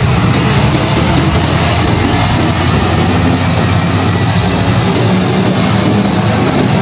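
Heavy truck engine running steadily, its sound strongest at the low end.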